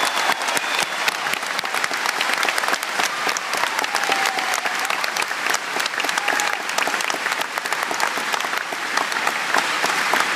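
Large crowd applauding steadily, a dense sustained patter of many hands clapping.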